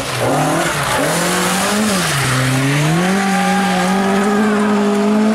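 Ford Escort Mk1 rally car engine under hard throttle through a corner: the revs climb, drop briefly about two seconds in, then climb again and hold high.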